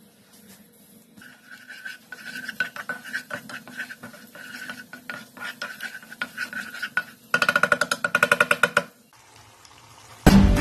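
A spatula stirring and scraping a thick sauce around a non-stick pan in repeated strokes. About two thirds of the way in, a second and a half of rapid, louder strokes, about ten a second.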